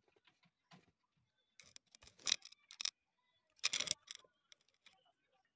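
Paper rustling as a printed book's pages are handled, in two short bursts about two and four seconds in, with a few faint clicks between.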